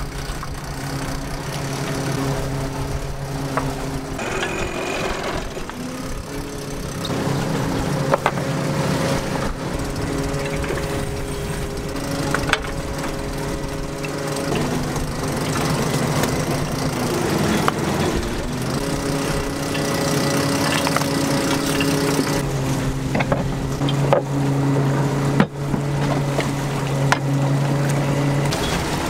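Steady engine drone of a small fishing boat hauling in a gillnet on its net-hauler drum, the pitch shifting a few times, with occasional sharp knocks.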